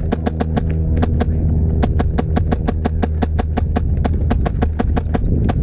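Quick, regular knocks, about five or six a second: the footsteps and jostling gear of an airsoft player running, over a steady low hum.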